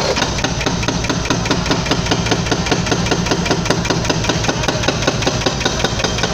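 Excavator-mounted hydraulic breaker hammering a concrete bridge parapet in rapid, even blows, with the excavator's engine running underneath.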